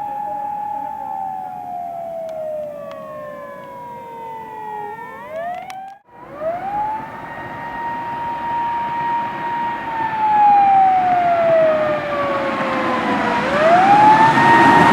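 Electronic wail sirens of Japanese emergency vehicles: the tone holds, slides slowly down over a few seconds, then sweeps quickly back up. About six seconds in the sound cuts off abruptly and another siren starts, growing louder as it approaches, with vehicle road noise building under it near the end.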